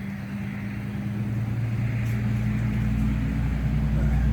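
A steady low mechanical hum made of several held tones, growing gradually louder.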